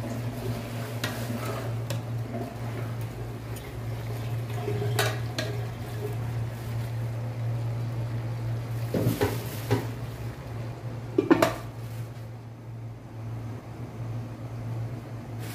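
Metal spatula stirring chicken and potato pieces in an aluminium pot, with scrapes and knocks against the pot. About eleven seconds in, the aluminium lid goes on with the loudest clank, over a steady low hum.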